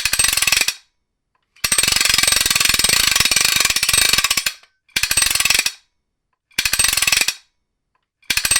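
Ratcheting trailer wrench clicking in quick runs as it is turned: a short run, then one long run of about three seconds, then three more short runs with pauses between.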